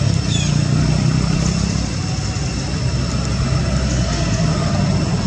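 A steady low engine hum, like a motor vehicle idling, with a faint steady high tone above it.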